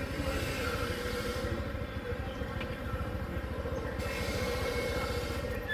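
Small motorbike engine running steadily at low speed as the bike rolls along, with a sharp click right at the end.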